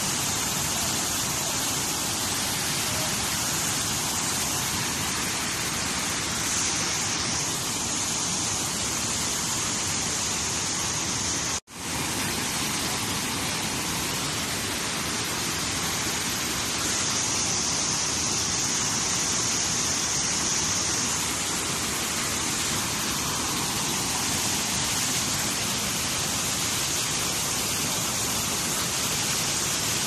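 Muddy floodwater surging over a waterfall in a flash flood: a steady, heavy rushing noise of water. It cuts out for a moment about twelve seconds in, then carries on.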